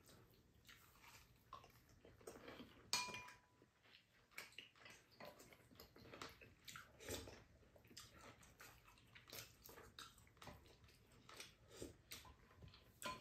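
Faint eating sounds at a meal: spoons and chopsticks clicking against ceramic bowls amid soft chewing and sipping, with one sharper ringing clink about three seconds in.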